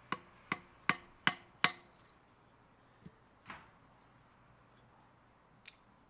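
A wooden baton striking the back of a knife blade to split wood (batoning): five sharp wooden knocks in quick succession, about two and a half a second. A couple of softer knocks follow about halfway through, and a light click near the end.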